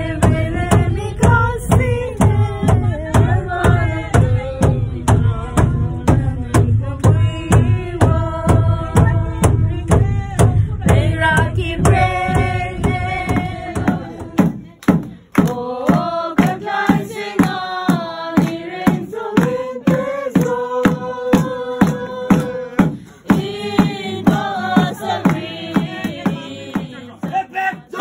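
A group of voices singing a Christmas carol together, over a steady beat of about two strokes a second. A deep thump under the beat stops about halfway through, and the singing goes on.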